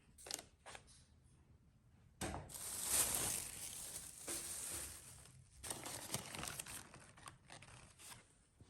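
Rustling and scraping of something being handled close by, a tearing-like friction noise in two stretches of a few seconds, after a few short sharp sounds near the start.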